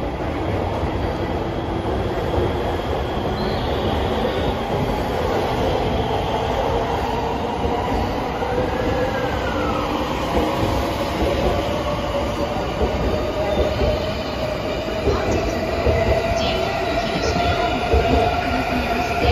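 JR 285 series Sunrise Izumo/Seto electric sleeper train pulling out of the platform close by and picking up speed, with the running noise of its cars and wheels. A faint whine slowly rises in pitch as it accelerates, and the sound grows a little louder toward the end.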